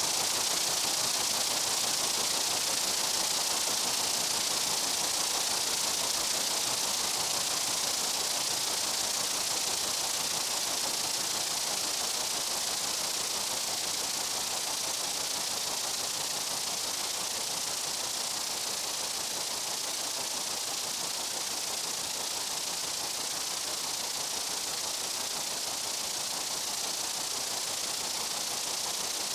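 Steady, unbroken insect buzzing from a meadow: a dense, even high-pitched hiss with no separate calls standing out.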